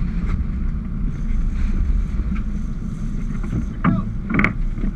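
Sportfishing boat under way: the engine rumbles steadily while water rushes along the hull and wind buffets the microphone. Two brief shouts break in near the end.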